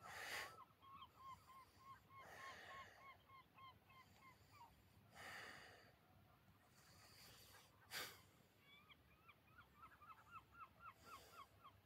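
A bird calling repeatedly in fast runs of short hooked notes, about three a second, through the first half and again near the end, with several short breath-like whooshes in between.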